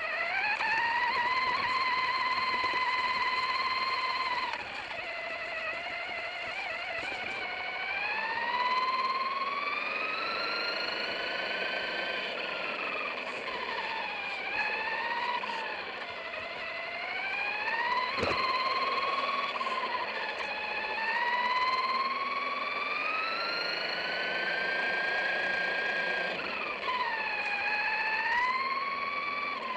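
Electric RC truck's motor and drivetrain whining, the pitch rising and falling over and over as the throttle is worked. A single sharp knock comes about eighteen seconds in.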